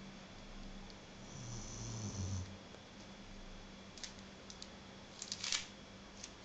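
Snoring: one low snore a little over a second in, followed by a few short clicks near the end.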